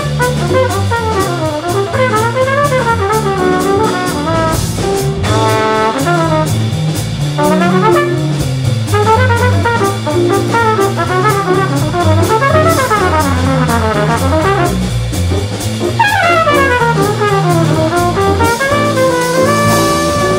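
Live jazz quintet with a trumpet solo of fast runs that climb and fall, over electric bass, piano and drums.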